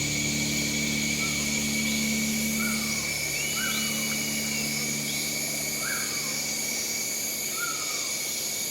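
Short falling chirps, roughly once a second, over a steady low hum and a steady high drone.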